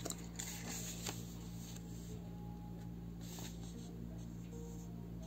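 Paper rustling as the pages of a small paperback guidebook are turned and handled: several short, soft rustles in the first few seconds, over a faint steady hum.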